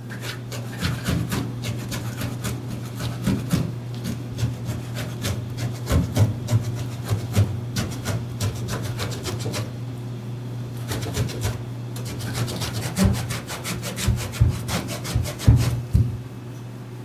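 Quick, irregular rubbing and scraping strokes by hand, several a second, coming in flurries, over a steady low hum.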